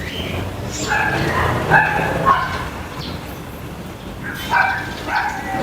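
Dogs barking in short bursts, a cluster about a second in and another near the end, with birds chirping in between.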